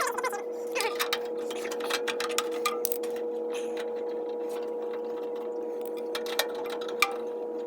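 A steady mid-pitched electrical hum runs under many small clicks and taps from hands working on the capacitor wiring.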